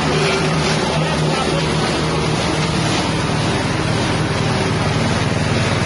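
Small 6.5 hp engine of a spice grinding machine running steadily at a constant speed.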